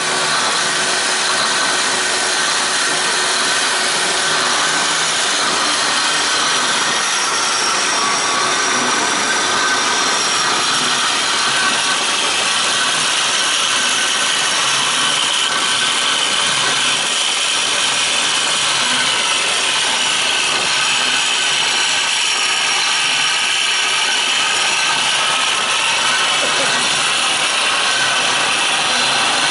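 Amada HA-400 horizontal metal-cutting band saw running steadily, a continuous hiss with a faint high whine that does not change.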